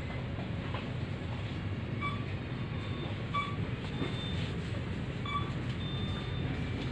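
Supermarket background: a steady low rumble of the shop's ventilation and floor noise, with several short electronic beeps about two, three and five seconds in and a couple of longer high beeps near four and six seconds.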